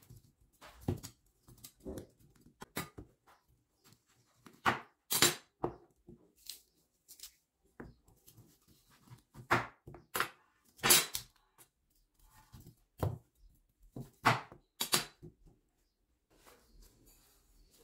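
Kitchen knife cutting apart sliced lamb trotters on a wooden cutting board: irregular sharp knocks of the blade against the board, about a dozen of them spread unevenly, as the slices are cut through and separated.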